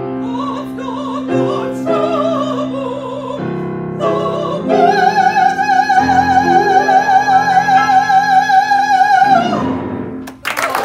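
Operatic female voice singing a spiritual with grand piano accompaniment, ending on a long high note held with wide vibrato for about five seconds. Applause breaks out near the end.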